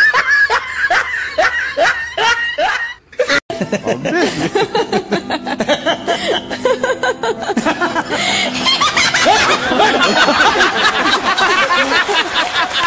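People laughing: rhythmic bursts of laughter about three a second, then, after a short break about three and a half seconds in, a man and a woman laughing heartily together.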